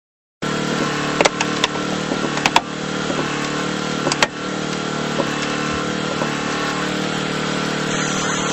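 Small engine of a hydraulic rescue-tool power unit running steadily while a hydraulic ram pushes against a wrecked car's body, with several sharp cracks and snaps in the first few seconds. The sound starts abruptly about half a second in.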